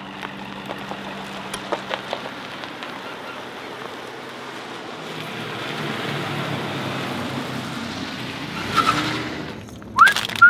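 Ford F-150 pickup truck running: a steady engine hum, with a wash of noise that grows louder about halfway through. Near the end a short rising whistle.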